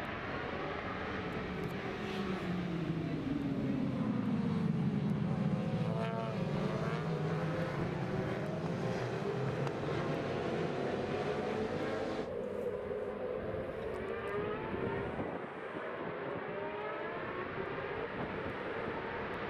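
Superbike racing motorcycle engines at high revs, their pitch sweeping down and back up as the bikes brake, change gear and accelerate past. The tone turns duller abruptly about twelve seconds in.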